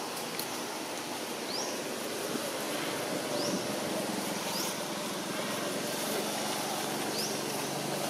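Outdoor background noise, a steady hiss, with a short high chirp rising in pitch every second or two. A faint low hum comes in near the end.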